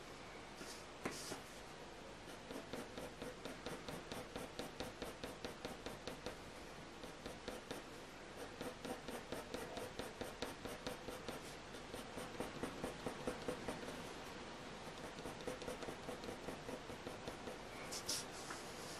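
Graphite pencil scratching on hot-press watercolour paper in quick, even back-and-forth shading strokes, about three to four a second, the point pressed a little harder to build up dark tone. A brief louder scrape comes near the end.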